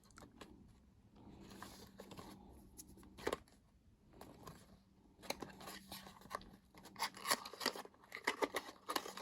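Packaging of a mascara and eye pencil set being opened by hand: faint rustling, a single sharp click a little past three seconds in, then from about five seconds in a busy run of short clicks and crackles of wrapping and box being handled.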